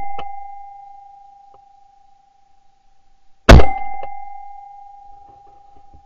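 A shotgun shot about three and a half seconds in, very loud and sharp, followed by a steady ringing tone that lingers for several seconds. The ringing tail of an earlier shot is fading at the start.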